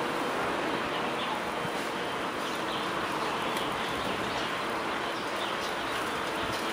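Steady rushing wind and rolling road noise from a bicycle moving along a paved road, with a few faint light ticks.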